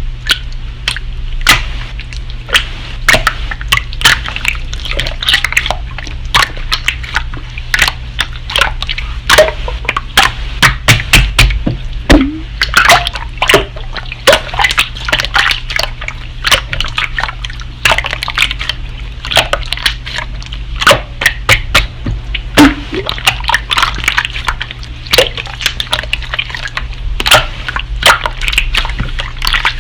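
Slime being squished, pressed and stretched by hand, making dense, irregular wet clicks, pops and squelches.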